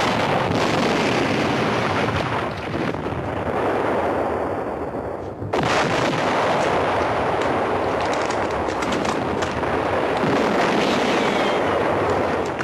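Battle sound effects of artillery shelling: a dense, unbroken din of explosions and rumble, with a sharp fresh blast about five and a half seconds in followed by a crackle of shots.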